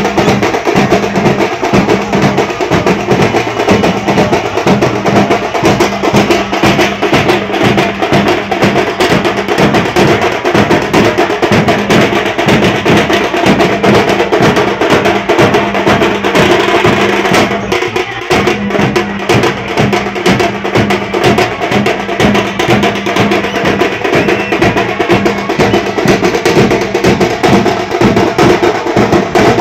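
A band of drummers beats large steel-shelled drums with sticks in a loud, fast, dense rhythm that never stops. The playing thins briefly about eighteen seconds in.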